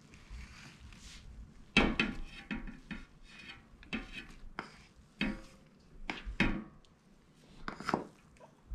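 A metal spoon knocking and scraping against a cooking pot as cooked rice is spooned in and spread. The knocks come in an irregular string, the loudest about two seconds in.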